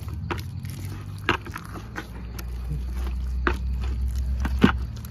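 Wooden pestle pounding cooked sticky rice mixed with sugarcane syrup in a plastic bucket: irregular thuds, roughly one to two strokes a second, the loudest near the end. A low steady rumble lies underneath and stops shortly before the end.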